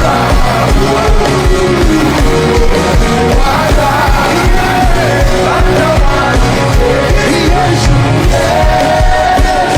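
Live gospel worship music: singing over a full band with a steady, even drum beat.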